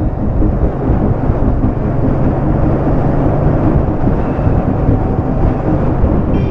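Motorcycle in motion on the road: a loud, steady rumble of wind buffeting the microphone mixed with the engine running.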